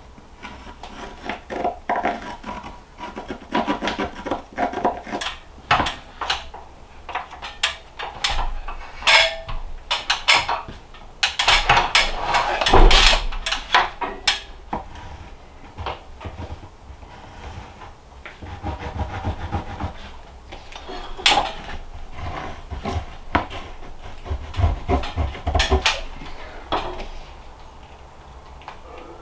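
Irregular wooden knocks, scrapes and rubbing as charred pine ceiling boards are worked into place overhead by hand.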